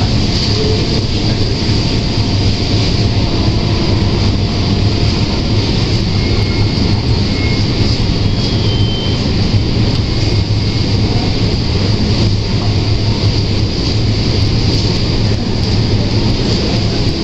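Steady industrial noise of a robotic car-body paint booth: an even rush of air with a strong low hum, unbroken throughout, as the painting robots work.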